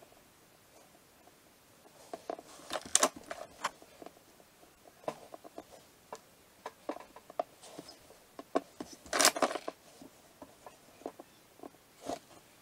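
Handling noises of fingers working a small modelling-clay toy car and setting it on a tabletop: scattered light taps and clicks, with louder rustling around three seconds in and again around nine seconds in.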